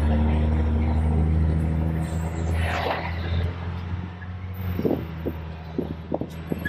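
Tour bus engine running with a steady low drone, easing off after about three seconds. There is a brief hiss about three seconds in, and from about five seconds a run of short sharp sounds.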